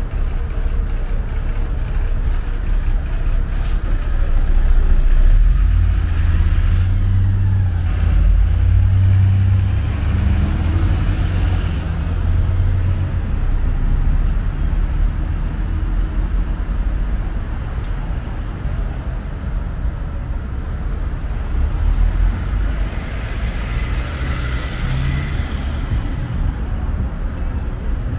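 Road traffic: the engine of a city bus and passing cars, a steady low rumble that grows louder for several seconds in the first half.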